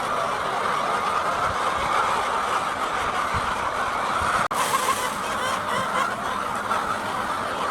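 A large flock of hens clucking and calling all at once, a steady, dense din with a very brief break about halfway through.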